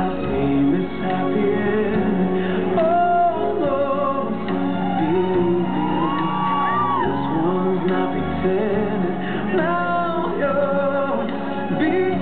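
Music from the fountain show's soundtrack: a song whose singer holds long notes over a steady accompaniment.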